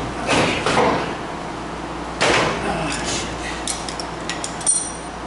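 Metal tools and parts handled against a bare sheet-metal pickup cab: short knocks and scuffs, then a run of light metallic clinks near the end, the last ones ringing briefly.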